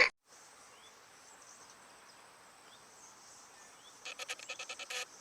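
Animal calls: a few faint short chirps, then near the end about a second of rapid pulsed calls, roughly ten a second.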